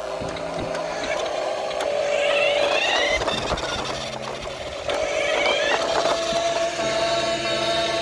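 Battery-powered toy vehicles running: a small electric motor whine rising in pitch twice, over steady electronic tones and plastic rattling.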